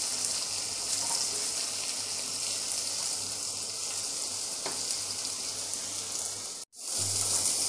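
Chicken tikka skewers coated in green masala sizzling steadily in hot oil in a non-stick pan, with a wooden spatula turning them as the masala is fried to cook off its rawness. The sizzle cuts out for a moment near the end, then resumes.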